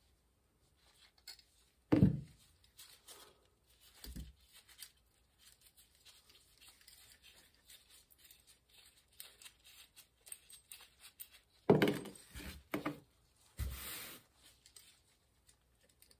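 Small metal parts of a bicycle friction gear shifter clicking and knocking as they are taken apart by hand, with faint scattered handling sounds. The loudest knocks come about two seconds in and in a cluster around twelve seconds in, followed by a short rustle.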